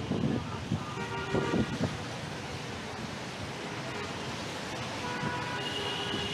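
Steady rush of strong wind and rain, with wind buffeting the microphone. Faint held tones, such as a horn or a distant voice, rise out of it about a second in and again near the end.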